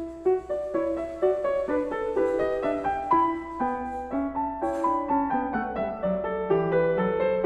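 Background piano music: a flowing line of single notes following one another every fraction of a second.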